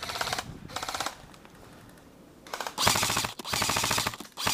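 Airsoft electric rifles firing on full auto: a rapid, even rattle of shots. There are two short bursts in the first second, then longer, louder bursts from about halfway through.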